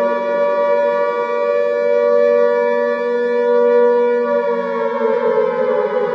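Civil defense air-raid siren sounding a warning, its wail held at a steady pitch, then starting to wind down with the pitch falling from about four seconds in.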